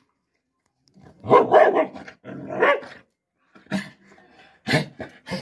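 A large dog barking and growling, a loud run of calls followed by sharp single barks about a second apart, directed at its own reflection in a mirror set over its food plate: the dog is guarding its food from what it takes for a rival dog.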